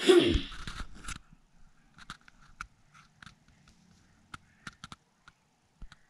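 Camera handling noise: a loud rustle for about the first second as the camera moves in, then scattered faint clicks and crackles.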